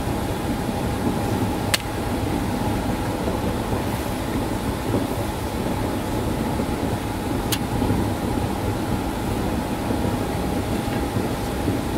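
Steady mechanical hum with a thin constant whine running through it, and two sharp clicks, one about two seconds in and another near eight seconds.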